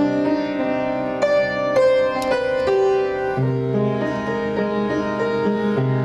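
Fritz Dobbert upright piano played slowly: a melody over held chords and bass notes, each new chord struck and left to ring.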